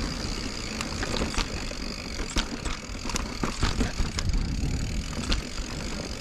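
Mountain bike, a 2021 Giant Reign Advanced Pro 29, being ridden along dirt singletrack. There is a steady rushing rumble of tyres and air, with scattered sharp clicks and rattles from the bike and trail.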